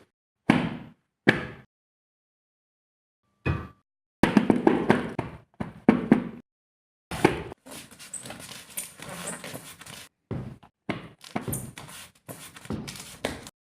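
Foley effects made of knocks and thuds: two separate hits, a pause, then rapid runs of knocking and clattering that carry on through most of the second half with short gaps.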